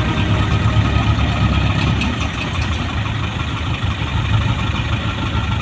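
Heavy diesel engine of an excavator or dump truck running steadily at a low, even rumble.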